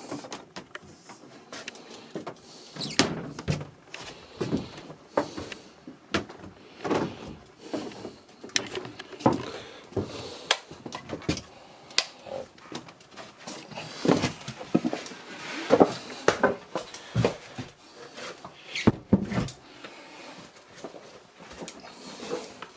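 Footsteps on a wooden floor with small knocks and bumps from someone walking through a narrow boat interior, about one to two steps a second, irregular.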